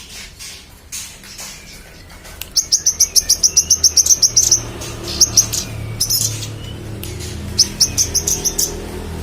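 A manggaran songbird singing energetically in rapid, high-pitched trills of about nine notes a second. There is a longer run a few seconds in, then shorter repeated bursts, over a low steady hum.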